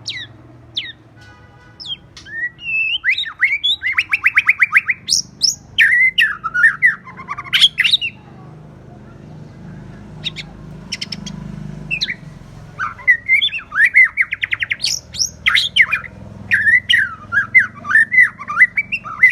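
White-rumped shama singing: two bouts of loud, varied whistled phrases with sharp up-and-down glides and fast rattling trills, separated by a pause of a few seconds that holds a few short clicks.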